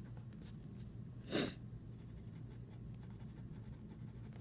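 Pen writing on paper, faint scratchy strokes, over a steady low background hum. About a second and a half in comes one short, sharp sniff, the loudest sound here.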